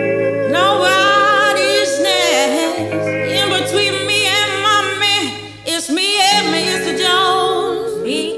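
Background music: a song with a singing voice holding long wavering notes over sustained low chords.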